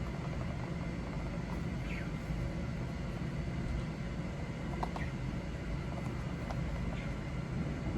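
Steady low room hum, with a few faint, brief chirps from pet birds a second or two apart.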